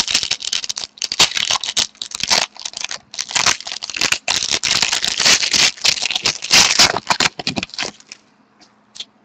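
Crinkling and tearing of a hockey-card pack's foil wrapper as it is ripped open and handled, a dense crackly rustle that stops about eight seconds in.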